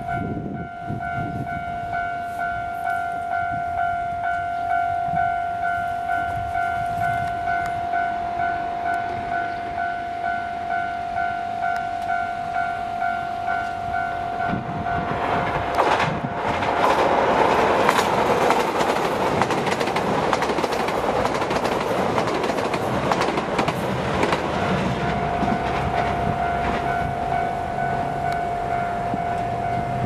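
Japanese level-crossing warning bell ringing in an even repeating pattern, about twice a second. About halfway through, the diesel limited express Hamakaze passes, and its wheels and engine noise drown the bell for about nine seconds before the bell is heard again.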